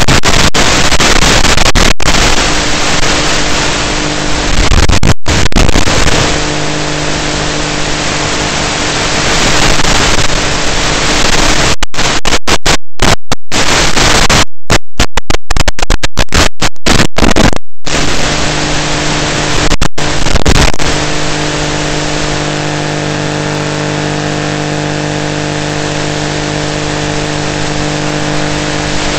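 Loud, even hiss of static from an analog FPV video receiver's audio channel, with a steady low buzz under it. It cuts out for brief moments again and again, most thickly around the middle.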